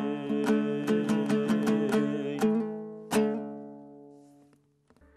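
Dombra strummed in quick rhythmic strokes, closing a terme with a final stroke about three seconds in that rings out and fades to silence.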